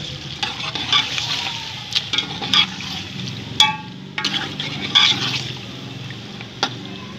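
Steel ladle stirring chicken pieces through a thick, wet masala in an aluminium pot, with irregular scrapes and clatters against the pot. One sharp, ringing metal clink comes about halfway through. A steady low hum runs underneath.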